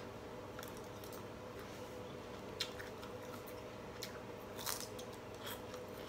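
A person chewing a mouthful of food and raw cabbage leaf, with a few faint crunches scattered through, over a steady low hum.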